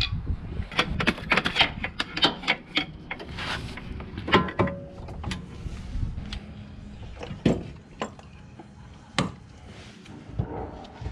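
Clanks and knocks of metal tools and car parts being handled: a quick run of clatters in the first few seconds, then single knocks a second or two apart.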